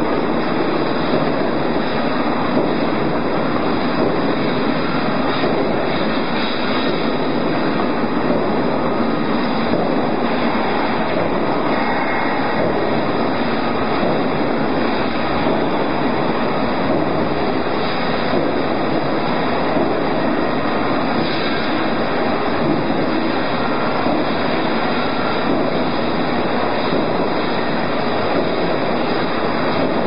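Cable tray roll forming machine running steadily as its rollers form a perforated metal strip: a continuous, even mechanical noise.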